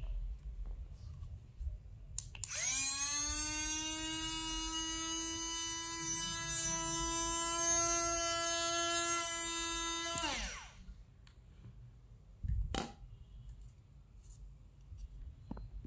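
Portable USB-rechargeable mini blender's small DC motor and blades running: a click, then a high, even whine that spins up quickly, holds steady for about eight seconds and winds down. A single knock follows a couple of seconds later.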